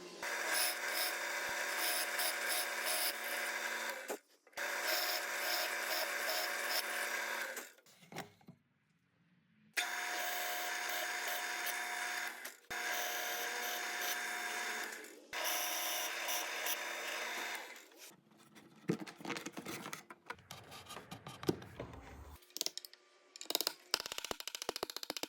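Power drill boring draw-bore holes in wood, running steadily in about five bursts of a few seconds each with short pauses. In the last several seconds, a run of irregular knocks and clicks.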